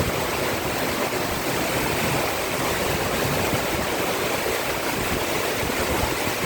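Heavy rain pouring down steadily, an even rushing hiss of a downpour with water running off.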